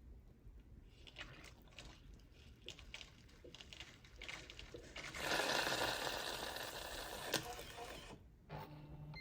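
Jura Z10 milk-system cleaning rinse: hot water and steam sputtering through the milk spout in short irregular spurts, then a steady hiss for about three seconds. It cuts off, and a brief low hum follows near the end.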